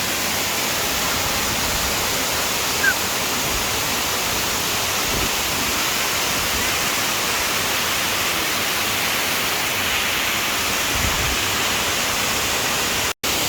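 Rushing water of a mountain waterfall or river, a steady, dense, even noise.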